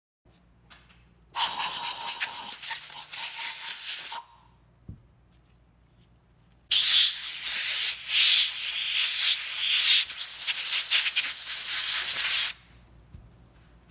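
Compressed-air blow gun blasting air through a reusable oil filter element from the inside out to dry it and clear out particles: two long hisses, the first about three seconds with a faint whistle in it, the second about six seconds.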